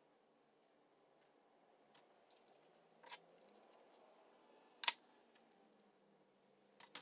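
Faint clicks and light rustling of a Honda GX160 carburetor being reassembled by hand, its small metal and plastic parts tapping as they are fitted. One sharper click comes about five seconds in, and a few more near the end.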